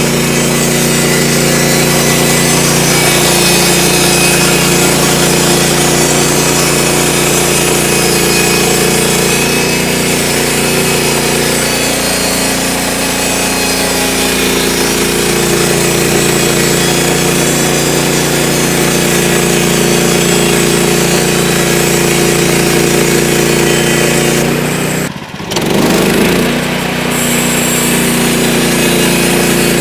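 Gas-engine portable band sawmill running steadily as its blade cuts through a log, engine hum under a constant sawing hiss. The sound dips briefly near the end, then carries on.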